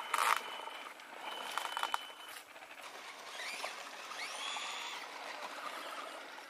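Electric RC monster truck's motor and drivetrain whining as it drives over gravel, the pitch rising and falling with the throttle, over a light crunch of tyres. A brief loud rush of noise right at the start.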